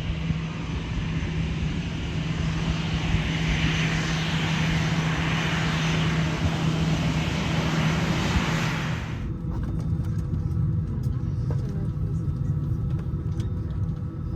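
Cabin noise of an Airbus A319-111 airliner: a steady roar of engine and airflow over a low hum, which changes abruptly about nine seconds in to a quieter low rumble with a few faint clicks.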